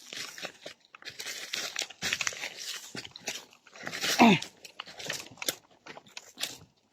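Footsteps crunching and rustling through dry leaves, twigs and undergrowth, with many small snaps. About four seconds in, one short, loud cry drops steeply in pitch.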